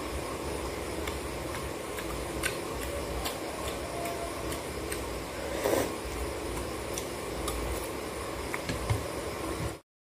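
A person eating from a bowl with a metal spoon: scattered sharp clicks over a steady low hum. The sound cuts off suddenly near the end.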